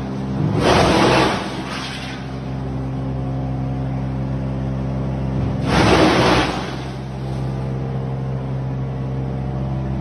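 Wood chipper's engine running steadily, with two loud bursts of chipping noise, each about a second long: one shortly after the start and one around six seconds in.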